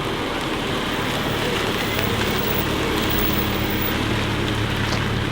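Volkswagen Golf 8R's turbocharged 2.0-litre four-cylinder engine idling steadily through its Akrapovic exhaust.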